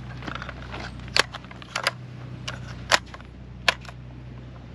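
Sharp metallic clicks and clacks from an FN SCAR 20S rifle being loaded and handled, a magazine going into it: a handful of separate clacks spaced about a second apart.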